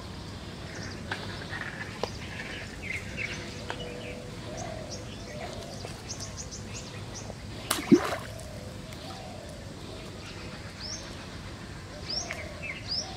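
Small birds chirping in short, scattered high calls over an outdoor background, with one sudden loud thump about two-thirds of the way through.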